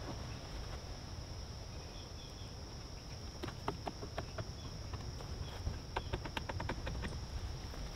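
Insects droning steadily in the woods, under light clicks and knocks as a roof-rack vehicle awning is rolled up and stowed. The clicks start about halfway in and run together into a quick rattle near the end.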